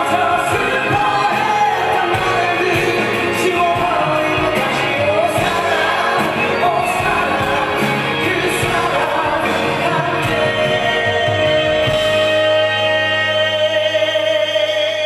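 Male singer singing a ballad live into a microphone with band accompaniment. In the last few seconds he holds one long note as the drums drop out.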